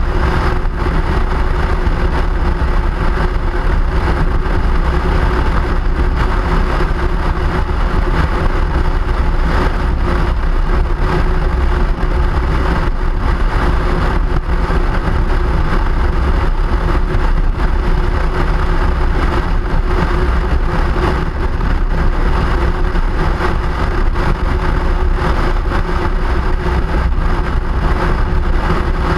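Steady vehicle noise heard on board during a ride: a constant low rumble with a faint steady hum.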